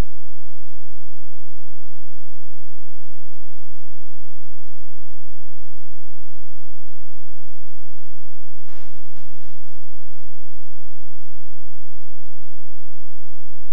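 Loud, steady electrical hum and buzz with many overtones and a fast flutter in its lowest notes, with a short crackle about nine seconds in. It drowns out the programme sound entirely, the sign of a broadcast audio fault such as a bad connection or ground loop.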